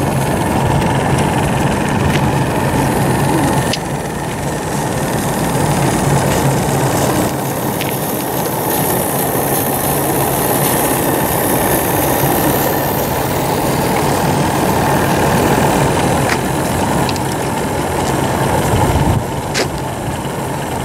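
Live steam model truck running as it drives: a steady mechanical hum with a hiss of steam that grows louder for a few seconds around the middle as it passes close.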